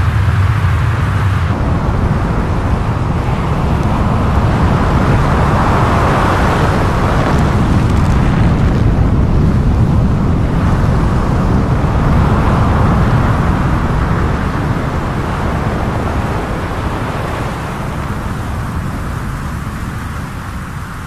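Powder-snow avalanche rushing down a mountainside: a loud, steady rumble and rush of noise that fades gradually in the second half.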